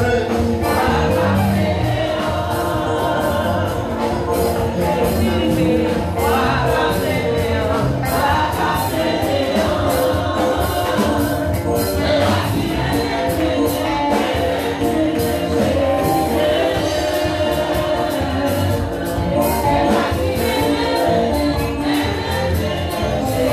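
Live gospel worship music: a lead singer on a microphone and a congregation singing loudly together over a band with steady, fast percussion.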